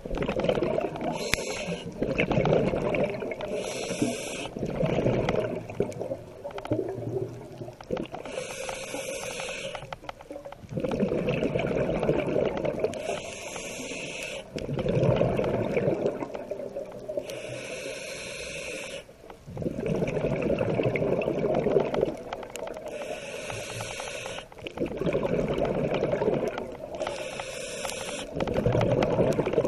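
Scuba diver breathing through a regulator underwater: a short hissing inhale, then a louder, longer bubbling exhale, repeating about every four seconds.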